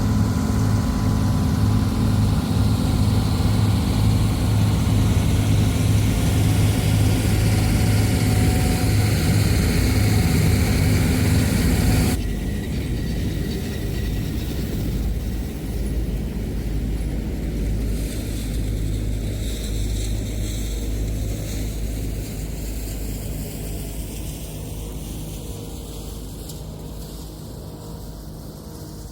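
Old 1980-era combine harvester running steadily while harvesting flax, with a deep, even engine drone and machinery clatter. About twelve seconds in the sound drops off suddenly and then fades slowly.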